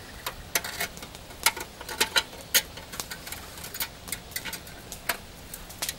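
Thin steel binding wire being pulled tight and wound around the rim of a rusty steel barrel: irregular sharp clicks and scrapes of wire on metal.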